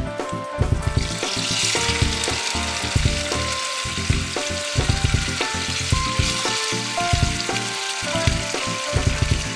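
Chicken pieces sizzling in hot oil in a nonstick wok, the sizzle starting about a second in as the chicken goes into the pan. Background music with a steady beat plays throughout.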